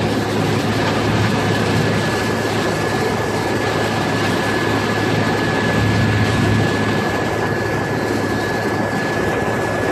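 Pilot boat's engines running steadily under way, with a constant rushing noise and a steady high-pitched whine.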